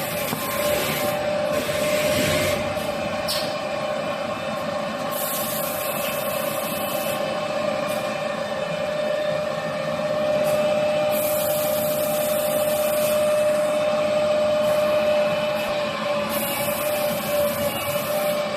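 Automatic toilet paper log saw cutting machine running with a steady whine. A high hiss comes in for about two seconds roughly every five and a half seconds as the machine cycles.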